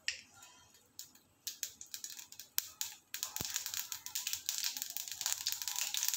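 Mustard seeds popping in hot sesame oil in an aluminium kadai during tempering: scattered sharp pops at first, becoming a dense, steady crackle about three seconds in.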